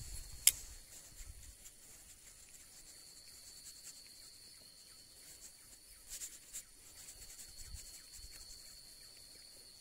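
Insects droning steadily at one high pitch, in a quiet rural background. A single sharp click comes about half a second in.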